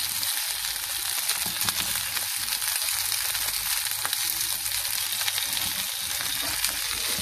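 Chicken seekh kebabs frying in shallow oil in a pan, a steady sizzle, with a few light taps of a slotted spatula as they are turned to brown.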